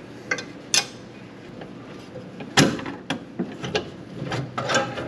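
Hand ratchet working the brake master cylinder mounting nuts: uneven runs of ratchet clicks and metal-on-metal clinks, with one sharp knock about halfway through.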